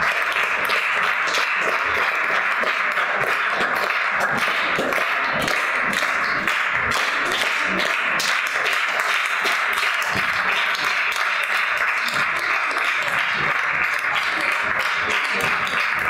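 Audience applauding steadily: many hands clapping at once, with no break.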